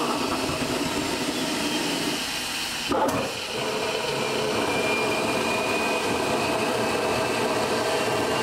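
Home-built gas turbine jet engine, a Buick Grand National turbocharger burning propane, running with a steady rush of air and combustion noise and a thin turbine whine that slowly rises in pitch over the second half. A single sharp knock about three seconds in.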